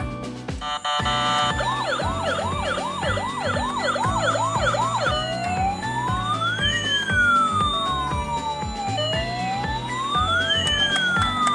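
Emergency-vehicle siren over background music with a steady beat. It starts as a fast yelp of quick up-and-down sweeps, about three a second, then switches about five seconds in to a slow wail that rises and falls twice.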